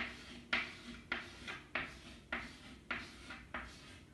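Chalk on a blackboard drawing small circles one after another: a string of short, scratchy strokes, about two a second.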